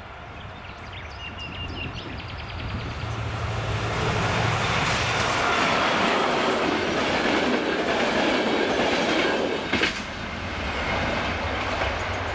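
Diesel-hauled passenger train running through a level crossing. The rumble of locomotive and wheels builds over the first few seconds and is loudest for about six seconds as it goes by. A single sharp clack comes near ten seconds in, after which the sound drops off.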